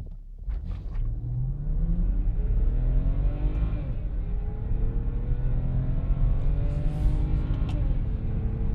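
BMW 523i's N52 2.5-litre straight-six accelerating hard with the automatic gearbox in sport mode: the revs climb, fall at an upshift about four seconds in, climb again, and fall at a second upshift near the end.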